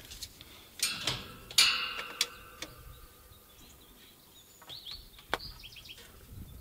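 A few sharp clicks and one metallic clank that rings briefly, from hand work on a wooden coop frame, followed about five seconds in by a handful of short bird chirps.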